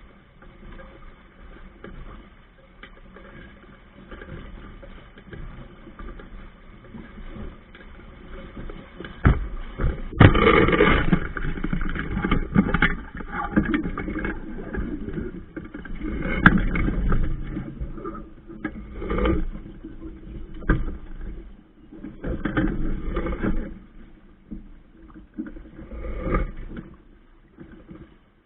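Hobie Cat 16 catamaran under sail: water rushing and splashing against the hull close to the microphone, with wind buffeting it. Fairly quiet at first, then irregular loud surges from about a third of the way in.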